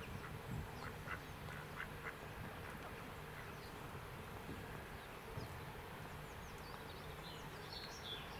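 Ducks calling faintly with a few short soft calls in the first couple of seconds. Quick high chirps from small birds come near the end, over a low steady rumble.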